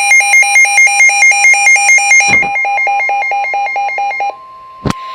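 A weather radio receiver's electronic alert alarm beeping rapidly, about six pulses a second, over the steady NOAA Weather Radio warning alarm tone that announces an incoming warning. The receiver's beeping stops a little past four seconds in, leaving the warning tone on its own, and a sharp click comes near the end.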